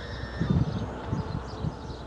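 A faint electronic data tone shifts up in pitch and cuts off just after the start, likely the end of the siren's FSK activation signal. Then come several low thumps, the loudest sound, over a steady low rumble, with faint bird chirps.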